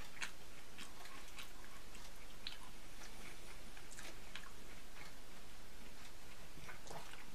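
A person eating: faint, irregular clicks of a fork on a frozen-dinner tray, with some chewing, over a steady hiss.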